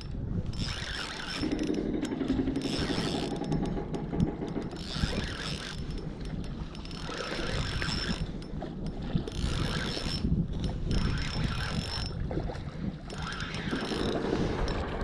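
Fishing reel being wound in, in stretches, while a hooked fish is played, with wind on the microphone.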